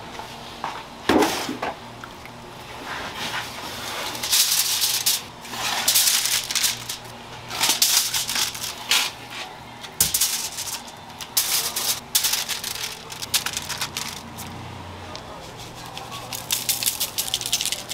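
Aluminium foil crinkling and rustling in irregular crackly bursts as it is handled in a foil-lined tray and raw cutlassfish pieces are laid onto it, with a clatter about a second in.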